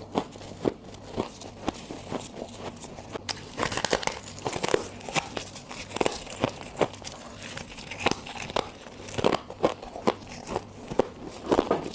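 Freezer frost being bitten and crunched close to the microphone: a steady series of crisp crunches, about two a second, growing denser near the end.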